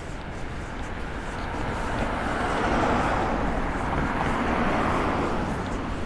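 Road traffic passing on the street alongside: tyre and road noise swelling over a couple of seconds, loudest around the middle, then easing off.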